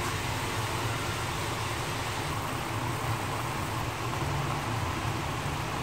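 Water at a rolling boil in a pan of noodles on a gas stove: a steady bubbling noise with a low rumble.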